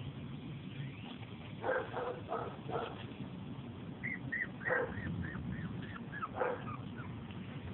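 Young puppies whimpering and yipping in short high cries, a quick cluster about two seconds in and more near the middle and toward the end.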